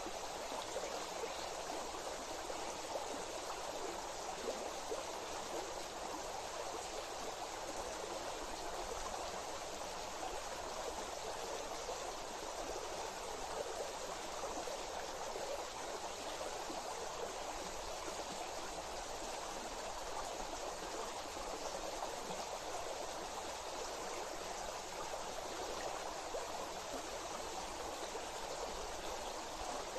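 Flowing water rushing steadily, an even wash of noise with no pauses.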